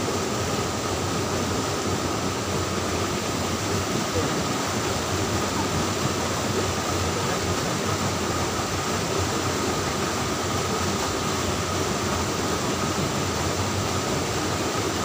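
Steady rushing of a rocky stream, water running over stones into a pool, an unbroken even noise.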